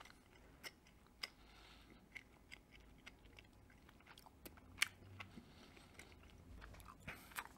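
Faint, scattered wet clicks of a mouth chewing a piece of dried beef, a few seconds apart, with one louder click a little past the middle.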